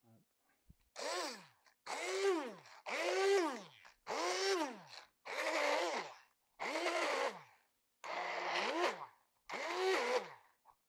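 Hand-held immersion blender pulsed in short bursts in a mortar, blending a pounded chilli, garlic, shallot and shrimp paste. There are eight bursts about a second apart, and in each the motor's whine rises briefly, then falls away as it spins down on release.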